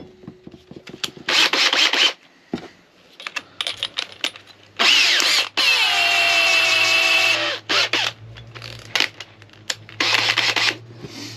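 Cordless drill run in short bursts while a step drill bit is fitted into its keyless chuck, the chuck ratcheting as it spins tight. The longest run, about five seconds in, is a motor whine that drops in pitch as the chuck tightens and then holds steady for a couple of seconds.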